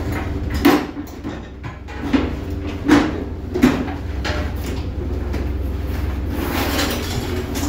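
Steady low hum of a fishing boat's engine, with several sharp hollow knocks and clunks as longline gear is handled on the deck. A broad rush of noise swells near the end.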